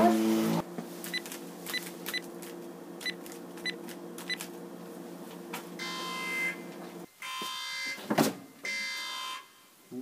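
Electronic machine sound effect: a steady low hum with six short beeps spaced unevenly over the first few seconds. A harsh electric buzz then cuts in and out several times. It opens with a brief loud rush of noise.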